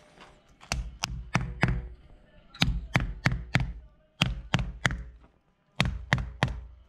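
Rubber mallet striking the heads of plastic insulation plugs (anchors) set in expanded polystyrene insulation boards, driving them in. The blows come in four quick bursts of about four each, with short pauses between.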